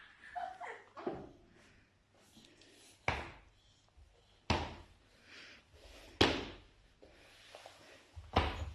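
Toddler clomping across a hard wood-look floor with one foot in an oversized adult shoe: a sharp, loud clomp every second and a half or so, with two in quick succession near the end.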